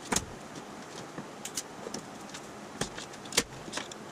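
Sharp metal clinks and taps as a stainless steel grille bar is handled and set into place against the metal grille shell, about six in all, the loudest about three and a half seconds in, over a steady hiss of shop room noise.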